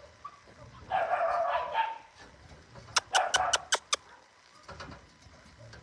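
Dogs barking: a burst of barking about a second in, then a rapid run of about six sharp yaps.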